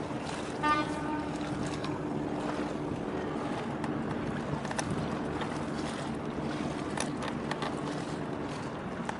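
Steady low drone of a boat engine with wind and water noise. A short high-pitched tone sounds about a second in.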